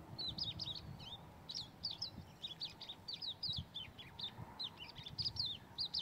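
A songbird singing: a continuous, rapid run of short high chirps and whistles.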